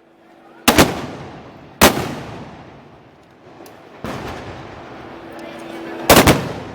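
Loud black-powder arquebus shots of a Moros y Cristianos gunpowder salute. They come one at a time and in quick pairs, each followed by a long echoing decay.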